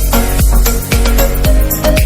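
Electronic background music with a steady beat, heavy bass and sustained synth notes.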